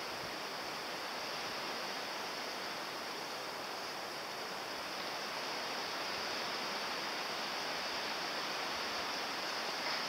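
Steady outdoor rushing noise, an even hiss without any distinct knocks or calls.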